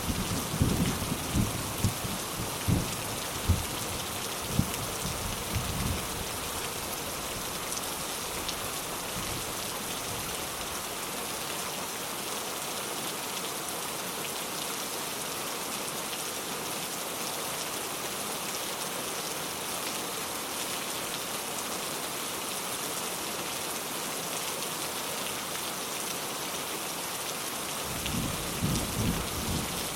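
Steady rain hissing throughout, with rolling thunder rumbling in the first six seconds or so and again near the end.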